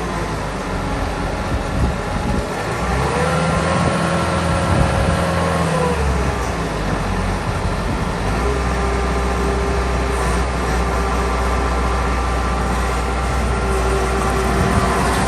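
Bobcat T650 compact track loader's diesel engine running, rising in pitch about three seconds in, holding there for about three seconds, then dropping back to a steady run.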